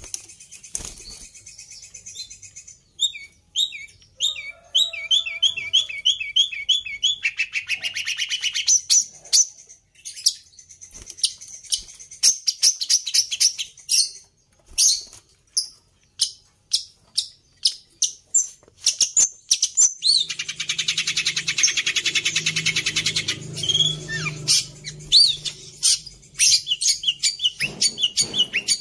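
Long-tailed shrike singing a long, varied song of high chirps, trills and fast runs of repeated notes, filled with mimicked calls of other birds that include the sirtu's call. About two-thirds of the way through there is a denser, harsher stretch.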